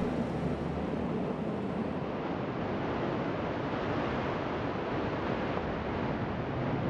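Steady rushing noise, even throughout, with no tones or separate events.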